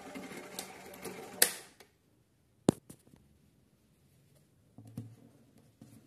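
Small electric motor of a Mandy Piko toy washing machine whirring as the drum turns, stopping with a loud click about a second and a half in and dying away, as it is switched off. After a short quiet, a sharp plastic click and a few lighter clicks of the toy being handled.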